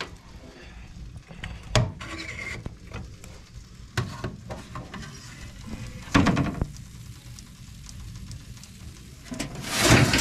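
Wood-burning cookstove: a few scattered metallic knocks and clicks, then near the end a brief loud hiss as the oven with potatoes baking inside is opened.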